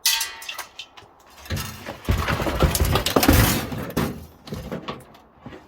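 Hard computer parts being handled and knocked about during a desktop PC teardown: a sudden sharp hit that rings briefly, then about two and a half seconds of loud clattering and rattling, tapering into a few lighter knocks.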